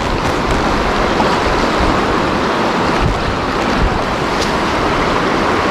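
Creek water rushing steadily over rocks, a loud, even noise.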